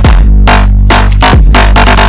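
Electronic hip-hop backing music with a heavy bass line and a fast steady beat, between the vocal lines.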